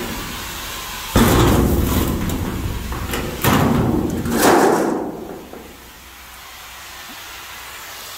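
A torch-cut panel of corrugated steel shipping-container wall tearing free with loud rumbling bangs from about a second in, ending in a crash as the sheet lands flat on the concrete about four and a half seconds in; a steady hiss runs underneath.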